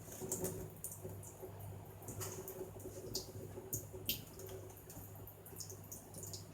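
A budgie bathing in water cupped in a hand: small, light splashes and drips come in short, scattered strokes. A steady low hum runs underneath.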